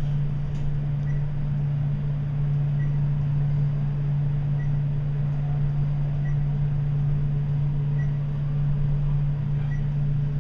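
Dover glass traction elevator riding between floors: a steady low hum, with a faint short tick about every second and a half.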